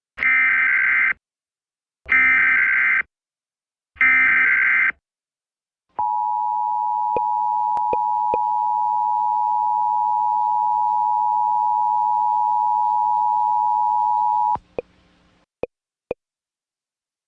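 Emergency Alert System Required Monthly Test broadcast: three one-second bursts of SAME header data tones about a second apart, then the EAS two-tone attention signal (853 and 960 Hz together) held steady for about eight and a half seconds. A couple of short clicks follow.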